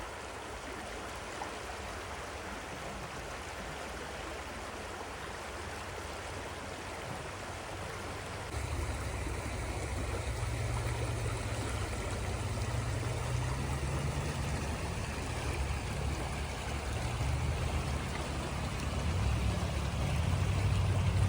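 Creek water rushing steadily; about eight seconds in, a deeper low rumble joins and the sound grows louder.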